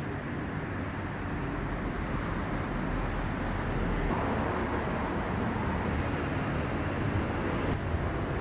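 Steady ambient rumble and hiss, with no distinct events standing out.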